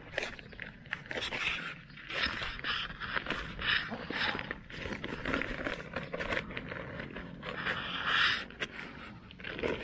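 Irregular scraping and rustling in soil and dry grass from hand work while planting, loudest about eight seconds in, with a few sharp clicks.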